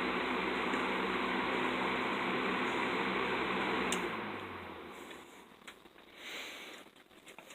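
1993 Galaxy box fan running with a steady rush of air and a low motor hum. About four seconds in, a sharp click, and the hum drops in pitch and fades as the fan winds down, followed by a few small clicks and rustles.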